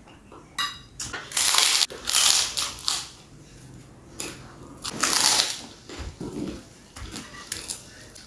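Close-up eating sounds: a crisp white cracker (kerupuk) crunched in several loud bursts of biting and chewing, mixed with noodle slurps.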